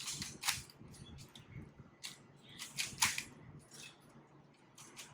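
3x3 Rubik's cube being turned fast by hand: irregular sharp plastic clicks and clacks of the layers snapping round, a few a second, with the loudest about half a second and three seconds in.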